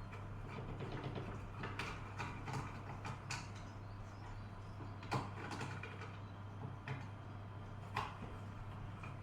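Scattered small clicks and knocks of hands working on a plastic extension-socket housing with tools, about five sharp ones, over a steady low hum.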